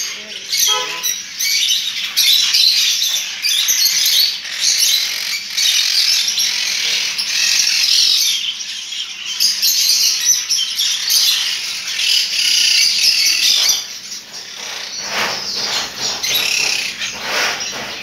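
A roomful of caged small parrots, lovebirds and budgerigars, chattering and squawking over one another in a loud, continuous din, with wings fluttering in the cages. The chatter thins a little in the last few seconds.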